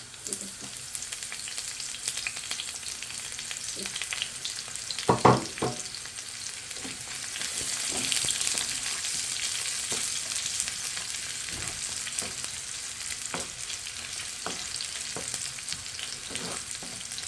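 Onions sizzling in hot oil with whole spices and garlic for a dal tarka, stirred with a spoon that scrapes and clicks against the pan. There is one loud knock of the utensil on the pan about five seconds in, and the sizzle grows louder a little after that.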